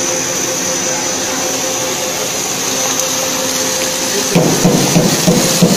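Twin-screw snack extrusion line and its rotary cutter running: a steady mechanical whir and hiss with a high whine. From about four seconds in, a fast, irregular clatter is added.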